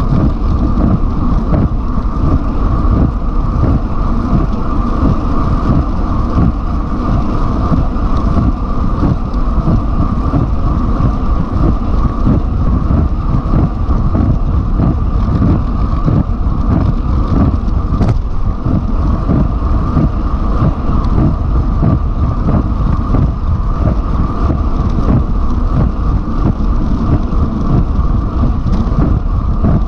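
Wind buffeting the microphone of an action camera on a road bike at about 53 km/h: a loud, steady, rumbling rush with a steady hum above it, and one sharp click about eighteen seconds in.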